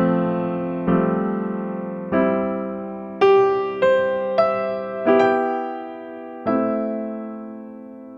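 Background music: slow electric piano chords, each struck and left to fade, with a few quicker ones in the middle.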